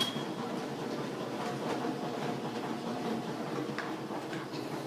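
Quiet room background: a steady faint hiss with a few light clicks and taps.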